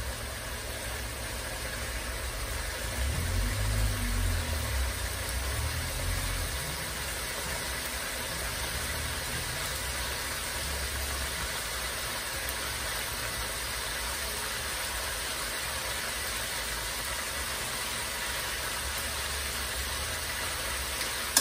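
Corned beef frying in cooking oil in a metal wok: a steady sizzle, with a low rumble from about three to seven seconds in.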